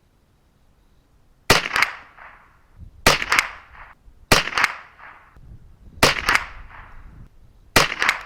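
Five .22LR rifle shots fired one at a time from a semi-automatic 10/22-pattern rifle, about one and a half seconds apart, each a sharp crack with a short echo.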